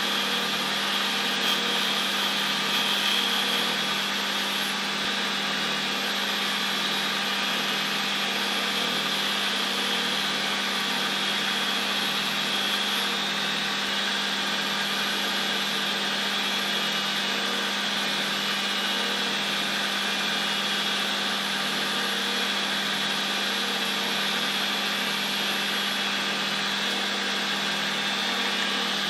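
Metal lathe running steadily while turning a stepped metal disc, a steady machine hum with a faint higher whine and no breaks.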